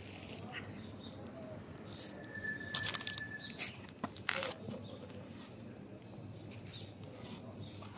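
Cats crunching dry kibble off stone paving, with a cluster of sharp crunches and clicks between about two and four and a half seconds in. A short, steady high whistle sounds in the middle.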